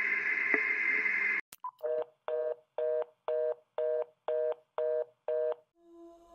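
A steady hiss cut off by a click, then a short higher beep and a telephone fast-busy (reorder) tone: eight short two-tone beeps, about two a second, before it stops.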